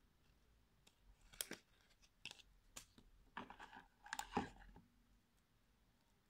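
Hands handling cardboard packaging and a paper leaflet: a string of light clicks, taps and rustles, the loudest about four seconds in.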